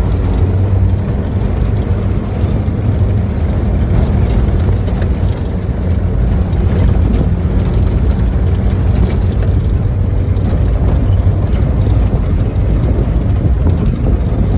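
A 4x4 jeep on the move: a steady, loud low rumble of engine and road noise.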